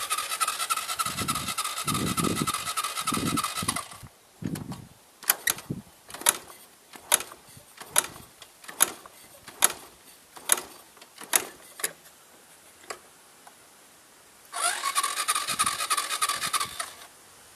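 A car's starter motor cranking the engine for about four seconds without it catching, then a run of sharp evenly spaced clicks about one a second, then a second crank of two to three seconds that also does not start the engine: a hard-starting engine.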